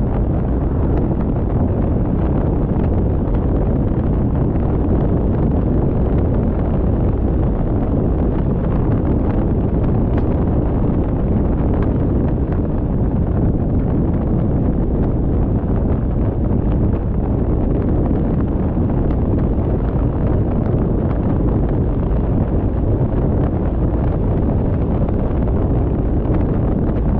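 Steady low rumble of wind buffeting the microphone, mixed with the road noise of a car driving at speed.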